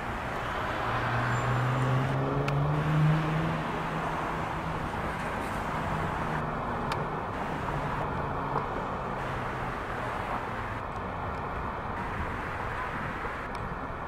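Road traffic, with one vehicle's engine rising in pitch and growing louder over the first few seconds, then falling away as it passes.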